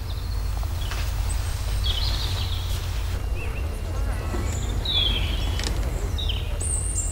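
Birds chirping in short scattered calls over a steady low rumble of outdoor background noise.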